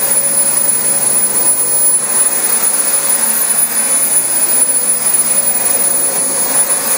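Dyson DC25 upright vacuum cleaner running steadily with a high motor whine, its brush bar working over thick new carpet.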